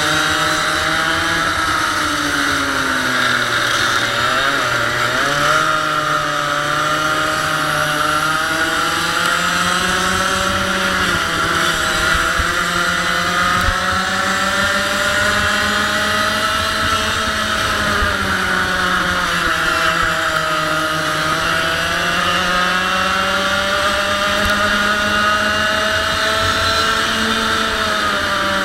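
A 100cc two-stroke kart engine running hard, its pitch rising and falling with speed as the kart brakes for corners and accelerates out of them.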